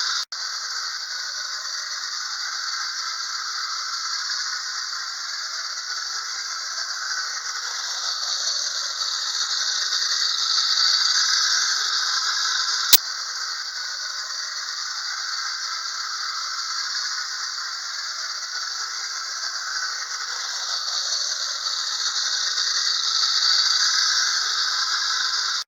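1950s wind-up tin Atomic Train toy running on its track, its clockwork motor and wheels giving a steady light metallic rattle that slowly swells and fades. A single sharp click about halfway through.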